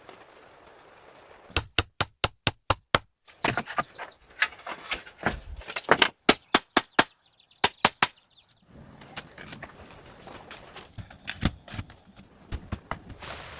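Bursts of quick, sharp hand-tool strikes, about five or six a second, like hammering. From about nine seconds in, a steady high insect buzz.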